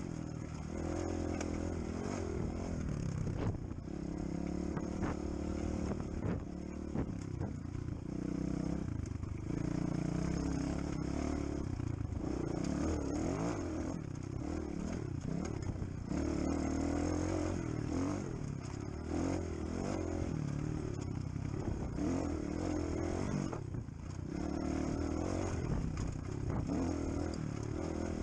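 250 dirt bike engine running under way on a rough, stony track, its revs rising and falling repeatedly as the rider accelerates and eases off, with clatter from the bike over the stones.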